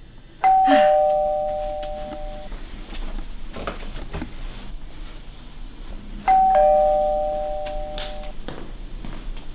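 Two-tone doorbell chime rung twice, about six seconds apart. Each time a higher note is followed at once by a lower one, and both ring on together for about two seconds as they fade.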